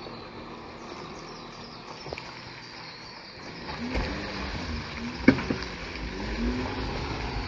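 VW Touareg's engine running at low revs while it crawls over rough ground, its pitch rising and falling a little from about halfway in. A sharp knock a little past five seconds in is the loudest sound.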